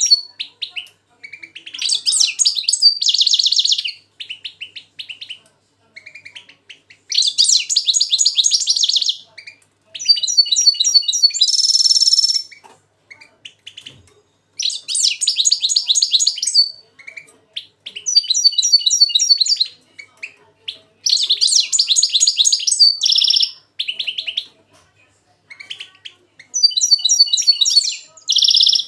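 Caged European goldfinch and a goldfinch-hybrid 'mixto' singing against each other: phrases of fast, high twittering trills a second or two long, one after another with short pauses, with a few drawn-out buzzy notes between them.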